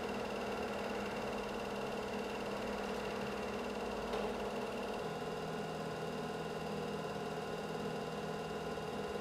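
Super 8 film projector running with a steady mechanical whir and hum. About five seconds in, the low part of the hum drops to a slightly lower steady tone.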